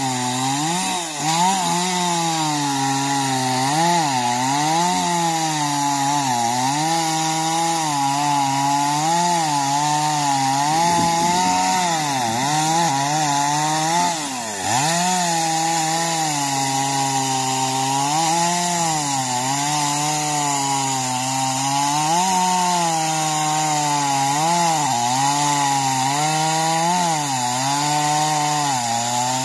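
Chainsaw running under load, cutting through a coconut palm trunk at its base. The engine pitch sags and recovers over and over as the chain bites, and briefly drops off about a second in and again about halfway through.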